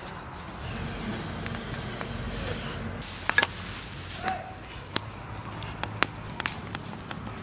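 Dry straw fire burning, with a low steady rush under irregular crackles and sharp pops, the loudest a pair of snaps about three seconds in; the fire is being used to singe a plucked duck.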